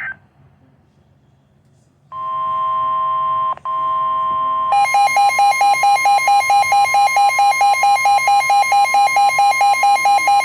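Emergency alert tones announcing a severe thunderstorm warning. A steady electronic tone starts about two seconds in and drops out briefly once. From about halfway through, a rapidly pulsing alert tone of about four beeps a second sounds over it.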